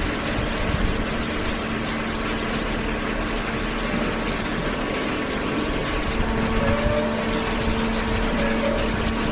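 A machine running steadily, giving a constant hum over an even rushing noise.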